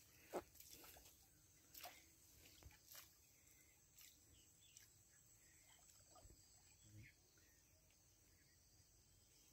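Near silence: faint outdoor ambience with a few soft, scattered clicks, the sharpest about half a second in.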